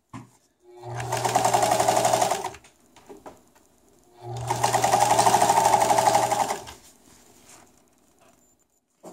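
Electric sewing machine running in two bursts of about two seconds each, stitching steadily through a test piece. Its upper-thread tension has just been tightened, and it is now sewing correctly.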